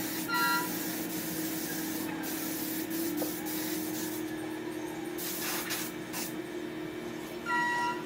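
A steady machine hum under a continuous hiss, with two short squeaky tones, one just after the start and one near the end.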